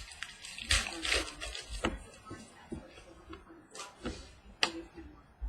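Trading cards being handled and flipped through: irregular rustles, slides and light clicks of card stock, in short bursts.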